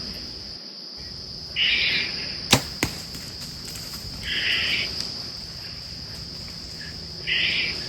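Steady high-pitched chorus of crickets. Two sharp clicks come a third of a second apart near the middle, and three short breathy hisses are spaced a few seconds apart.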